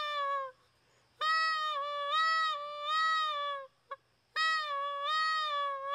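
Canada goose call (reed call) blown in three long steady notes with a short blip between the last two, the pitch dipping slightly and recovering as a hand is moved over the call's end. The hand adds back pressure, which slows the reed's vibration and lowers the tone.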